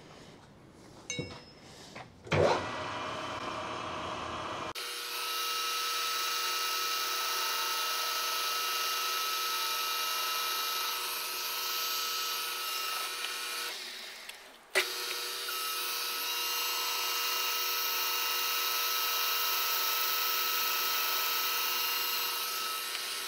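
Manual lathe cutting the outside diameter of a heavy-wall tube: a steady cutting hiss with a held whine. It opens with a few clicks and a sharp knock about two seconds in, and is broken by a brief dip and click about fifteen seconds in.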